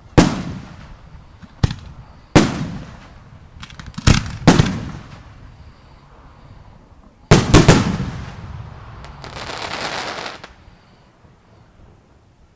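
Fireworks bursting: a string of sharp bangs, each trailing off in an echo, with three in quick succession about seven and a half seconds in. A hiss of about a second and a half follows, then the sound dies away.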